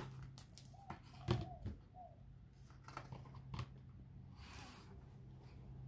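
A paperback picture book being opened and its pages handled: a few soft taps and clicks of the card cover and paper, then a brief rustle of paper about four and a half seconds in.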